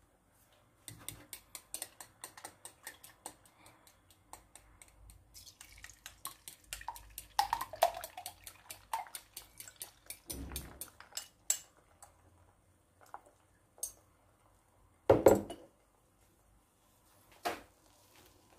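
Fork clinking against a glass bowl as eggs are beaten, about four clinks a second at first, then faster and denser. A soft low splash comes about ten seconds in as the egg is poured into the frying pan, followed by two loud single knocks near the end.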